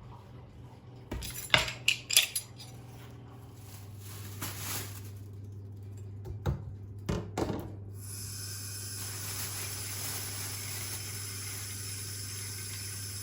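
Dishes and cutlery clinking against each other in a few short bursts, then a kitchen tap turned on about eight seconds in, running steadily.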